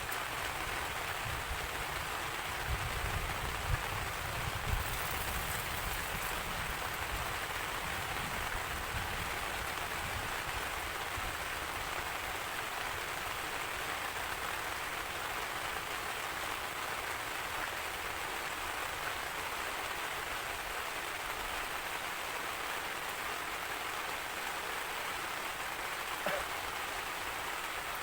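Steady heavy rain falling, an even hiss of drops, with a low rumble swelling under it in the first several seconds and fading away.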